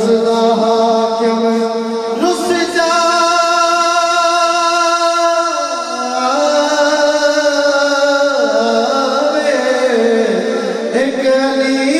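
Male naat reciter singing a devotional naat into a microphone. He draws out long held notes that step down in pitch a couple of times, with a new phrase starting near the beginning and another near the end.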